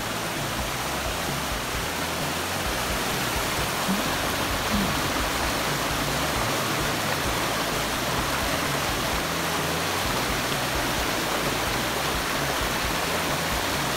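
Rushing mountain creek: white water running fast over rocks, a steady, unbroken roar.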